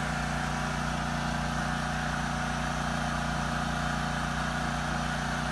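Portable generator engine running steadily at a light load of well under 1000 watts, close to idle: an even hum that holds one pitch.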